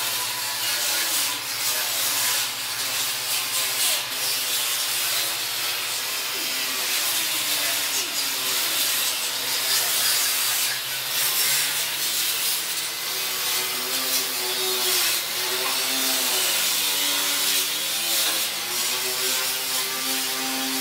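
Handheld power grinder sanding over the steel of a scrap-metal sculpture: a steady abrasive hiss, with the motor's hum wavering up and down in pitch as the tool is pressed and eased against the metal.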